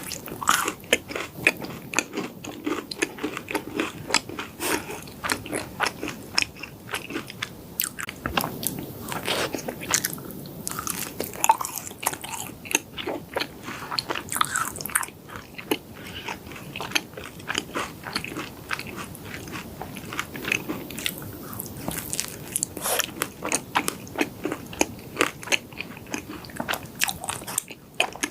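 Close-miked chewing of yakgwa, Korean fried honey cookies: steady, irregular crunching and sticky mouth clicks as bites are chewed.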